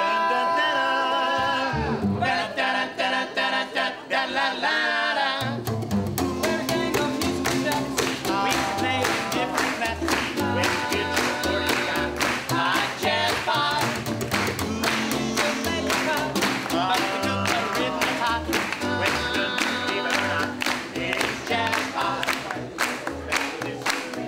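Small acoustic swing band: several men singing in close harmony, first unaccompanied, then with upright bass, snare drum and ukulele coming in about five seconds in with a steady swing beat.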